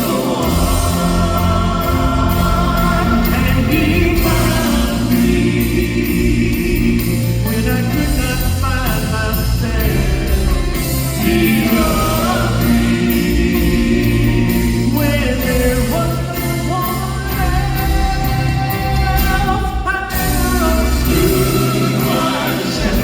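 Live gospel music: voices singing in harmony with long held notes over a band with bass and drums.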